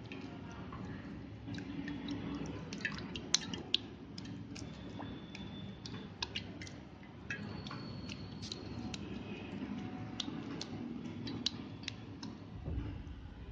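A hand dipping and squeezing a lump of homemade milk cheese in warm water in a steel bowl: irregular small clicks and taps against the bowl over a soft wet background, with a low bump near the end.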